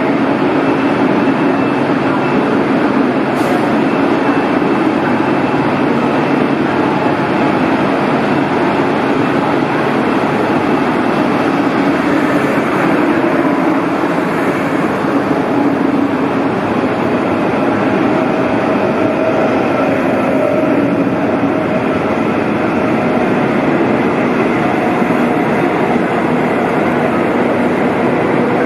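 Double-deck regional train rolling past along the platform in an underground station hall, with a steady loud rumble of wheels on rail. A faint steady whine joins in around the middle.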